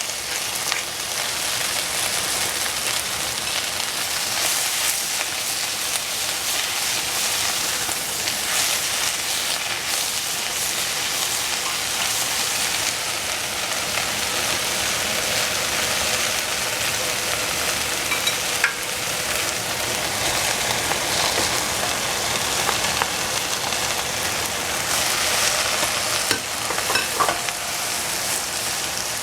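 Rice and vegetables sizzling in a hot pan as they are stir-fried, a steady frying hiss with a few sharp clicks of the spatula against the pan, one about two-thirds through and a couple near the end.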